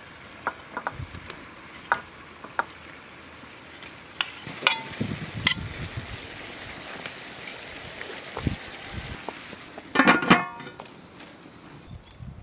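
Chicken drumsticks in tomato sauce simmering and sizzling in a large metal pot as fried potatoes are tipped in and spread with a metal spoon, with scattered light clinks of the utensils on the pot. About ten seconds in, a louder ringing clatter of metal on metal.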